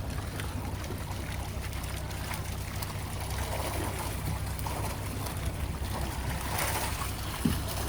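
Fishing boat's engine running steadily, a constant low hum, with wind and water washing past the hull.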